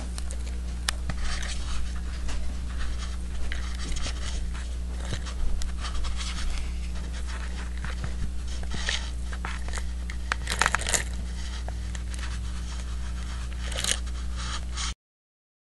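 Close handling noise: scattered scrapes, rustles and light clicks as the hand-held mirror system is moved about, over a steady low electrical hum. The sound cuts off abruptly near the end.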